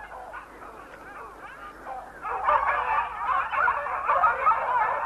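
A pack of hunting dogs yelping and baying on a wolf's scent trail, many voices overlapping. The calls are fainter at first and grow louder and denser from about two seconds in.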